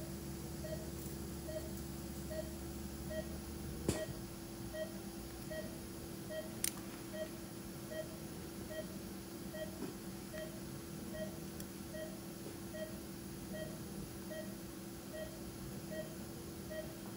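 Operating-room patient monitor beeping steadily and evenly, a bit more than once a second, as the pulse tone of the anaesthetised patient's heartbeat, over a steady low equipment hum. Two sharp clicks of surgical instruments come about a third and a half of the way in.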